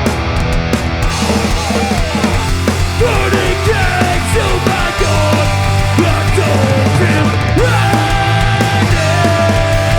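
Hardcore punk band playing live: distorted electric guitars, bass and drums. From about three seconds in, a guitar plays a melodic line with bent and sliding notes over the band.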